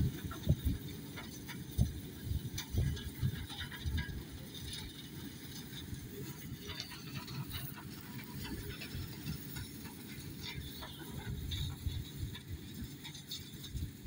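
Tractor-drawn Slattery forage harvester chopping standing maize: a steady mechanical clatter of the chopper over the tractor's engine, with irregular low buffeting from wind on the microphone.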